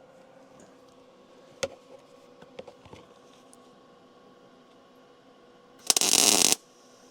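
A few light metal clicks and taps, then, about six seconds in, a short crackling burst of welding arc just over half a second long: a tack weld from a Vulcan OmniPro 220 welder on steel truck-frame pieces.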